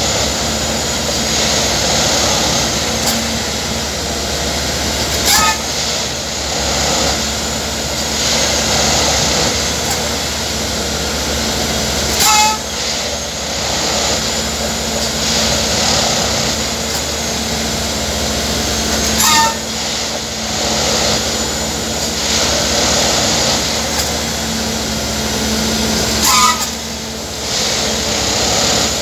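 Railway track tamping machine working: a steady diesel and hydraulic drone with a held low hum, broken about every seven seconds by a short, sharp, louder burst. The burst comes four times and keeps the pace of the sleeper-by-sleeper tamping cycle.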